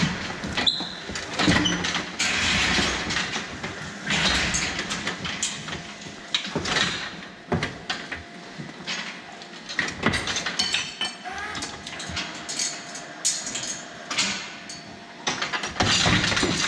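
Irregular metallic clanks and knocks from a steel hoof-trimming chute as a cow shifts and steps on its grated platform.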